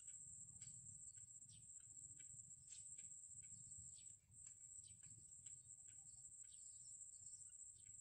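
Faint, short, high peeps repeated irregularly, from downy cinnamon bittern chicks begging at the nest. Behind them run a steady high drone and a low rumble.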